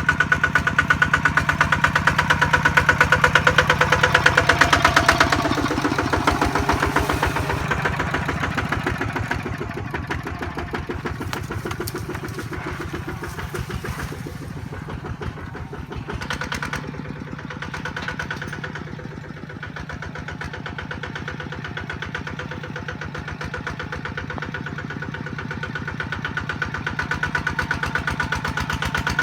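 Kubota RT155 single-cylinder diesel engine on a farm truck running with a steady, rapid thudding beat. It is loudest for the first five seconds or so, then eases and runs more quietly, picking up again near the end.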